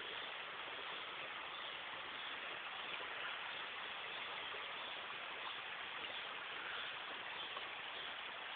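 Steady rush of a shallow stream's water flowing over riffles, heard thinly through a cellphone microphone.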